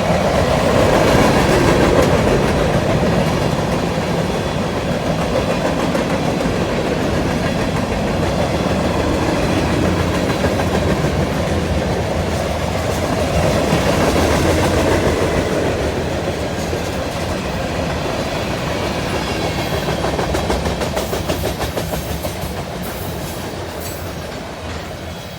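Long freight train rolling past, its cars' wheels clattering over the rail joints. The sound swells and eases as cars go by, then fades near the end.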